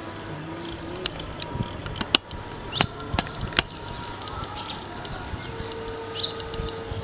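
Scattered sharp clicks, bunched in the first half, and a few short chirps over a steady background hum.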